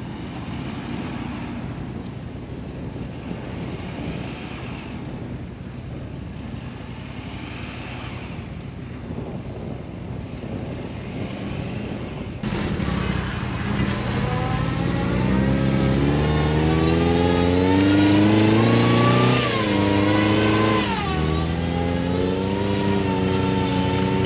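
Vehicle engines running under load as a stuck pickup and camper trailer are pulled out of soft sand with a strap. About halfway through, an engine revs hard, its pitch rising and falling.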